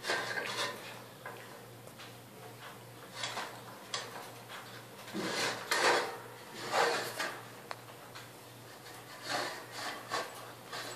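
Belgian Malinois puppy eating kibble from a plastic slow-feeder bowl: irregular scraping and rattling of kibble and muzzle against the bowl's ridges, in uneven bursts.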